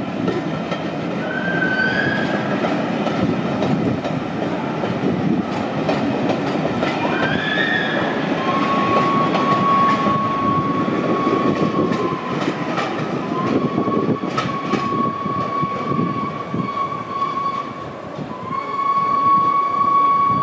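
Passenger coaches of a steam-hauled train rolling past over pointwork, with a steady rumble and wheels clicking over rail joints. Brief wheel squeals come early on, and from about halfway a long, steady high-pitched wheel squeal as the train curves away.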